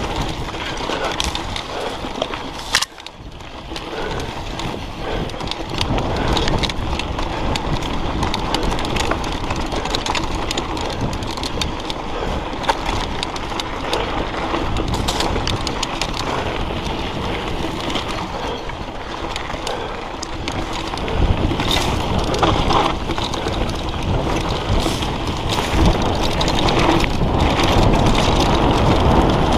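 Mountain bike descending a dry dirt singletrack: tyres crunching over dirt and stones and the bike rattling over bumps, with wind buffeting the action-camera microphone. A sharp knock comes about three seconds in, followed by a brief lull.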